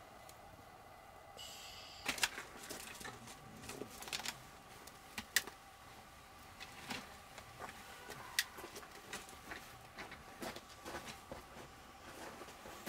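Split firewood being shifted with tongs in a perforated stainless steel fire pit, with irregular clicks and knocks of wood on wood and metal, mixed with the crackle of the fire. The knocking starts about a second and a half in.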